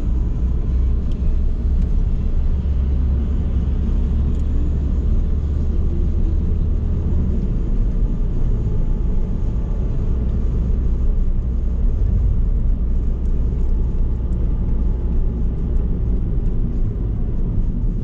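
Car driving at steady speed, heard from inside the cabin: a continuous low rumble of engine and tyres on the road.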